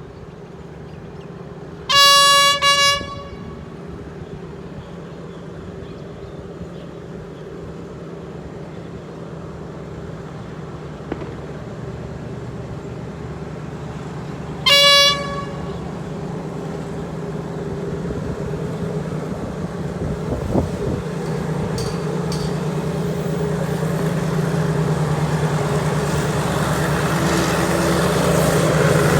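Diesel passenger train's horn blown as a warning at a dog crossing the track: a blast of about a second about two seconds in, then a short toot near the middle. Under it the rumble of the approaching train grows steadily louder.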